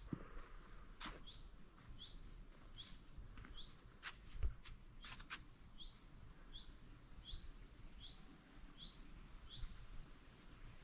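A small bird repeats a short high chirp, faint, about once every three-quarters of a second. A few soft clicks fall between the calls.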